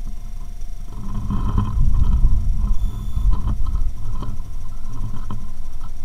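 Low rumbling noise on the microphone, louder from about a second in, with scattered light ticks of a Eurasian jay pecking through seed in a feeding dish.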